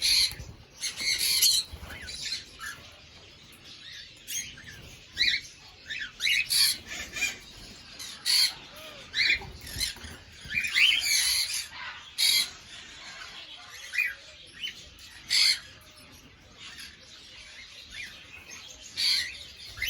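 A flock of cockatiels calling in an aviary: many short chirps and squawks, scattered irregularly, some louder calls standing out.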